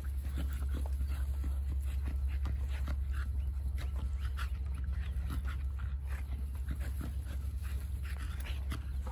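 Two dogs playing rough: panting and brief play noises with short scuffling sounds, over a steady low hum.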